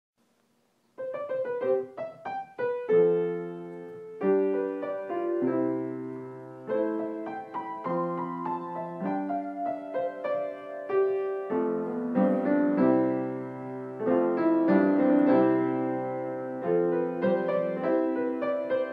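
Background piano music: a quick run of short notes about a second in, then slow, held chords.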